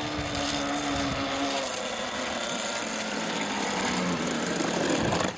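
OS 40 VRM two-stroke glow engine with a tuned pipe, running hard in an RC rigger hydroplane: a high, raspy buzz over hissing spray. The pitch drops partway through as the throttle is trimmed back, and it grows louder toward the end as the boat passes close.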